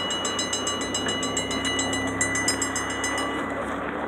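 Railroad crossing bell ringing fast and evenly over the low rumble of a passing freight train; the bell stops about three seconds in, as the signal clears behind the train.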